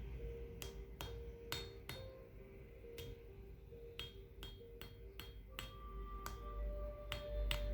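An HED (howardite-eucrite-diogenite) meteorite being tapped again and again with a hard object: about fourteen sharp clinks at an uneven pace, each leaving a brief high, bell-like ring. In the second half the taps bring out longer, lower ringing tones that hang on between strikes.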